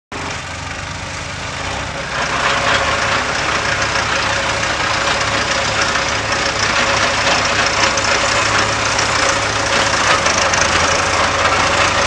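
Small crawler dozer's diesel engine running steadily at close range while the dozer works, getting louder about two seconds in and holding there.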